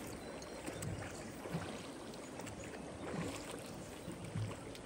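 River current washing past a rowed drift boat: a steady rush of moving water, with a few soft low bumps now and then.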